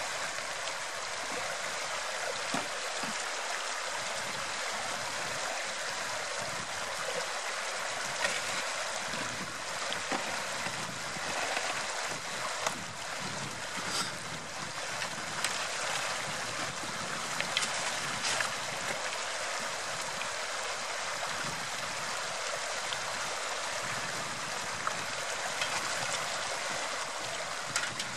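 Shallow river running steadily over stones, with a few short knocks and clicks scattered through.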